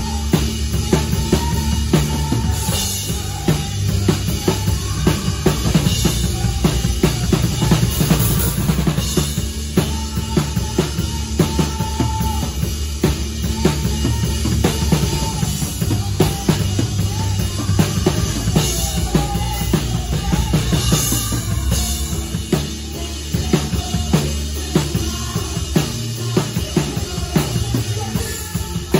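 PDP drum kit with Meinl Pure Alloy Custom cymbals played live: a busy, steady beat of kick and snare strokes, with several cymbal crashes, over the rest of the band's music.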